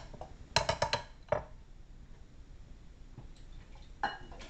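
Kitchen containers and utensils knocking as blended sauce is poured back out of a bullet blender cup: a quick run of taps about half a second in, a single knock just after, then one ringing clink near the end.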